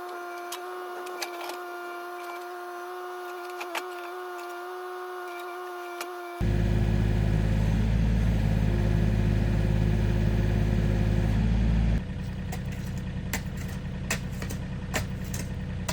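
Diesel engine of a John Deere 35D mini excavator running steadily, coming in abruptly about six seconds in after a steady high whine, and dropping to a quieter engine sound about twelve seconds in.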